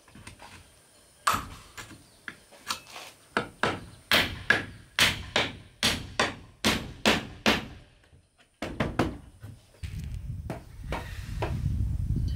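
Hammer blows on wood, a run of sharp strikes at about two a second, with a few more after a short pause. A low rumbling noise comes in near the end.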